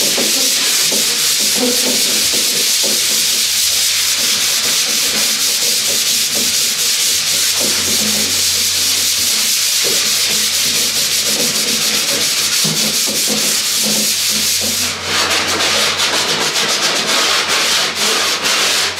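Hand sanding the wooden top of a cornhole board with 220-grit sandpaper: a loud, steady scratchy rasp of rapid back-and-forth strokes, the final pass that knocks the burrs off. About fifteen seconds in the strokes turn shorter and quicker.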